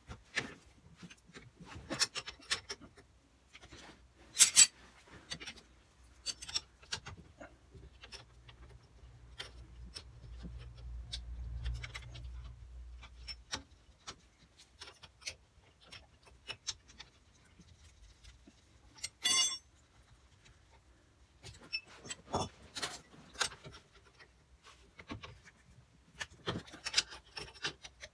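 Hand tools working on the brake back plate and stub axle of a Morris Z van's front wheel: scattered metallic clinks, taps and scrapes as the plate is unbolted, with a sharp knock about four and a half seconds in and a short high metallic ring a little after the middle. A low rumble runs for a few seconds near the start.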